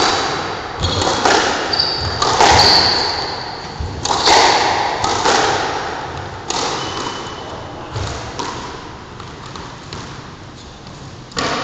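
Squash ball cracking off rackets and the walls of a hard-walled court, each hit ringing with echo. The hits come about once a second for the first several seconds, then thin out, and one more sharp hit comes near the end. Short high squeaks, from sneakers on the wooden floor, are heard between hits.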